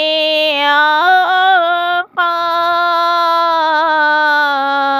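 A solo voice singing an Urdu naat unaccompanied, drawing out long held notes with small melodic turns. There is a brief breath about two seconds in.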